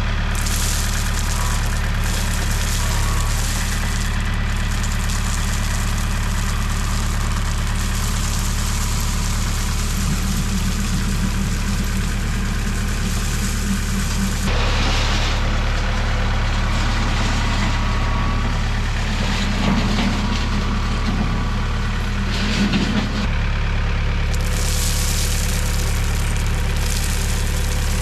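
A small engine or motor running steadily at an even speed, with a constant low hum and some higher noise over it.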